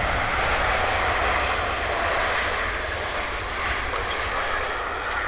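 Boeing 777-300ER's GE90 turbofan engines running as the airliner rolls along the runway. The jet noise is steady, with a low rumble beneath it, and eases a little toward the end.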